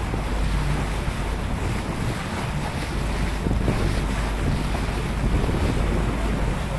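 Steady wind buffeting the microphone, with the rush of water along the hull of a catamaran under way.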